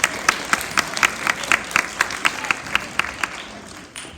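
Audience applauding after a song, with one pair of hands close by clapping about four times a second over the general clapping; it dies away after about three seconds.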